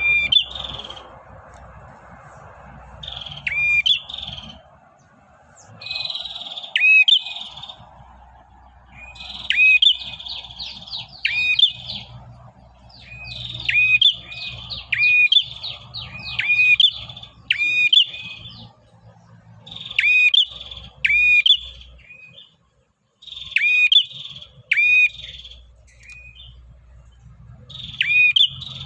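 Male prenjak kepala merah (a small tailorbird-like warbler) singing continuously, in the rapid chattering style keepers call "ngacor". It gives short bursts of sharp, quick chirps about every one to two seconds, a calling song used as a lure for small birds.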